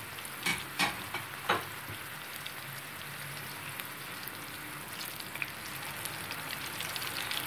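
Ground tomato, garlic and ginger paste sizzling steadily in hot oil in a frying pan, with a few sharp clicks in the first couple of seconds. A spatula stirs it near the end.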